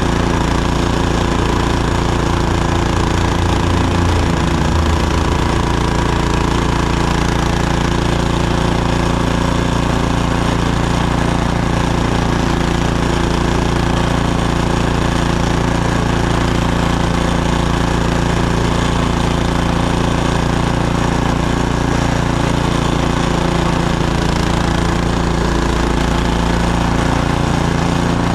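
Gasoline snowblower engine running steadily.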